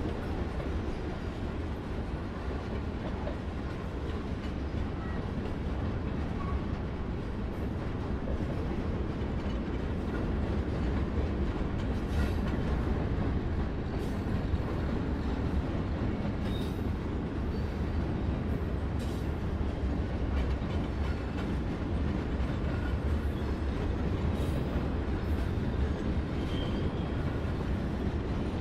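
Freight cars rolling past on jointed track: a steady low rumble of wheels on rail, a little louder partway through, with occasional sharp clanks.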